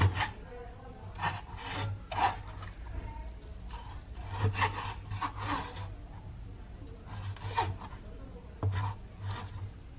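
Knife slicing through raw buffalo meat against a cutting board: irregular rasping strokes that come in clusters, the busiest run about halfway through.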